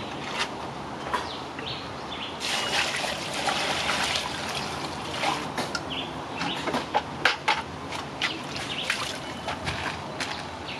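Water splashing and trickling in a cooking pot that holds raw chicken pieces. There are sharp little splashes and clicks throughout, with a denser stretch of splashing a couple of seconds in.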